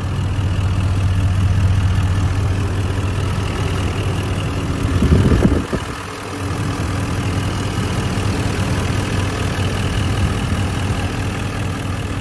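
2018 GMC Sierra 2500 Denali's L5P Duramax 6.6-litre turbodiesel V8 idling steadily and quietly, heard close up under the open hood. About five seconds in, a brief burst of louder low rumbling noise rises over it.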